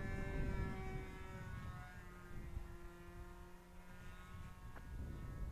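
Radio-controlled model airplane's engine droning in flight, its pitch sliding slightly lower over the first two seconds and then holding steady.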